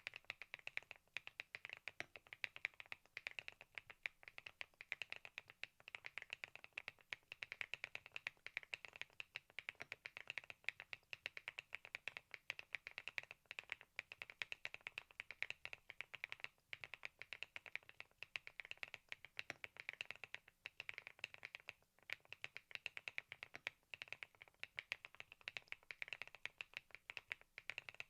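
Thinkway TAUCHE.S 501 full-aluminium mechanical keyboard being typed on steadily and quickly: a continuous run of soft key clacks, many a second.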